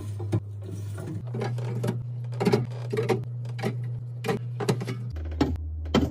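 Background music with a held low bass note that shifts pitch twice, over irregular clicks and taps of containers and packages being handled and set down.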